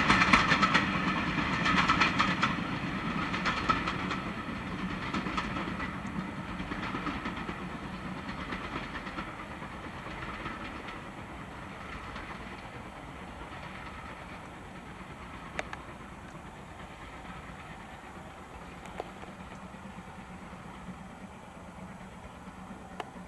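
Passenger coaches of a passing train clattering over the rail joints, a rhythmic clickety-clack that fades steadily as the train draws away, leaving only a faint background after about ten seconds.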